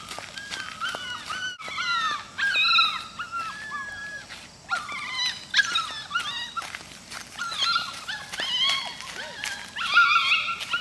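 Poodle puppy whining and yelping in short, high, wavering cries that come in bursts, the loudest about ten seconds in.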